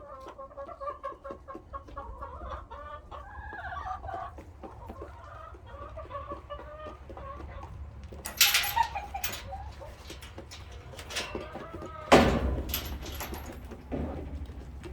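Hens clucking steadily in a chicken coop, with two louder bursts of noise about 8 and 12 seconds in.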